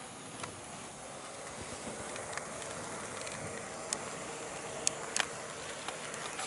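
HO-gauge model EF81 electric locomotive pulling a coach along the track: a steady motor whir and wheel rumble that grows a little louder about two seconds in, with a few sharp clicks as the wheels cross rail joints, the clearest about four and five seconds in.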